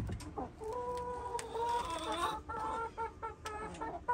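Hen calling: one long drawn-out note, then a run of short clucks.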